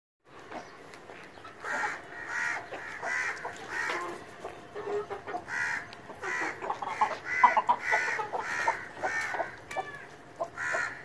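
A flock of young Aseel chickens clucking and calling over and over in short, pitched notes.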